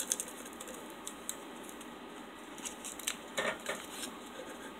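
Small paper packet of True Lemon powder crinkling and being tapped over a glass: scattered sharp clicks and rustles, with a denser flurry about three and a half seconds in, as the clumped powder refuses to pour out.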